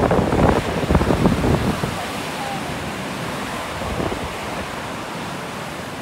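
Storm waves on Lake Superior breaking and washing ashore in a continuous rushing hiss. Strong wind gusts buffet the microphone for the first two seconds, then ease off.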